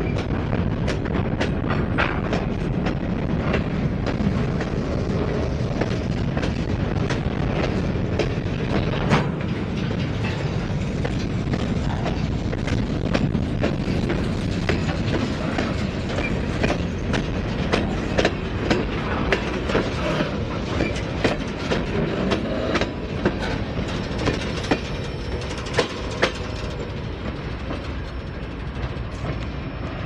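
Norfolk Southern freight train's covered hoppers and tank cars rolling past close by: a steady rumble of steel wheels on rail, with sharp clickety-clack as the wheels cross rail joints, coming as a run of regular louder clicks in the second half.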